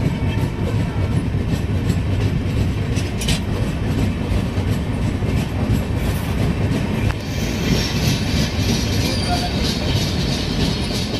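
Express passenger train running along the track: a steady rumble with wheels clicking over the rail joints now and then, and a higher hiss joining about seven seconds in.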